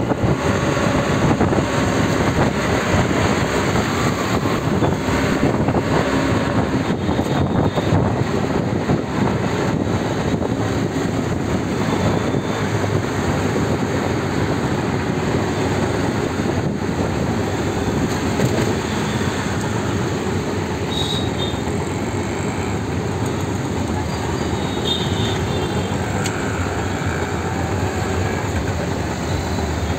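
Auto-rickshaw's small engine running steadily under way, mixed with road noise and surrounding traffic, heard from inside the open-sided cab.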